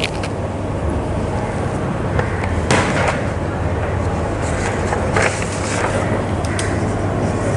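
Steady low rumble and hiss of background noise, with a few short marker strokes and taps on a whiteboard. A sharp tap a little under three seconds in is the loudest.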